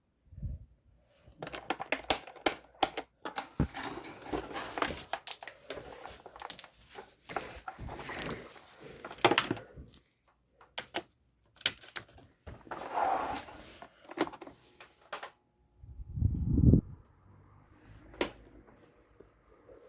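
Rapid clicking and rattling of plastic parts on a Hanil electric fan as it is handled, then a low thump and the fan's motor starting a steady faint hum for the last few seconds.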